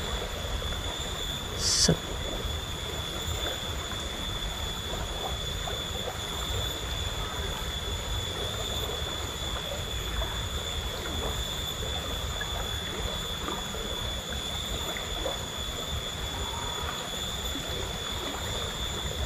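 Steady rush of a shallow rocky river flowing, with a low rumble and a faint, steady high tone over it. About two seconds in comes one short, louder high-pitched sound.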